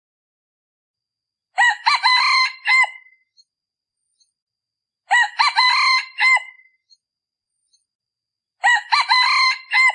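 Male junglefowl decoy cock crowing three times, evenly spaced about three and a half seconds apart, each crow short at about a second and a half. It is the crow used as a call to lure wild junglefowl.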